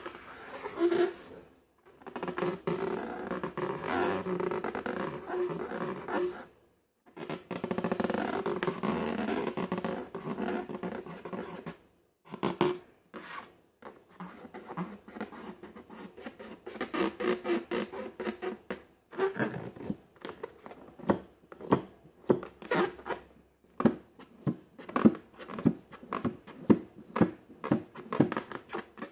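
Slime being squished and worked by hand, making a crackling, sticky sound in long stretches with brief pauses; in the last third it turns into a run of sharp wet pops and clicks, one or two a second.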